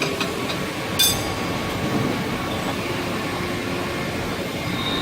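Steady industrial machinery noise, with a single sharp metallic clank that rings briefly about a second in.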